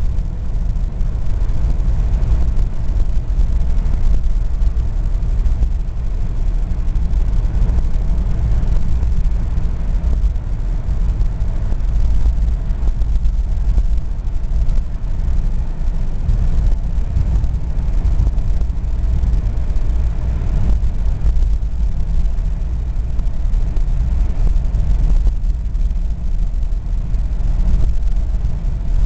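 Interior cabin noise of a 1969 Cadillac factory limousine cruising at about 55 mph: a steady low rumble of its V8, tyres and wind that holds even throughout.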